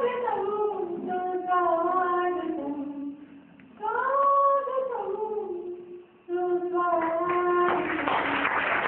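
A woman singing solo and unaccompanied into a microphone, slow phrases of long held notes that glide between pitches, with short breaths between phrases. Near the end a dense rushing noise rises over her last note.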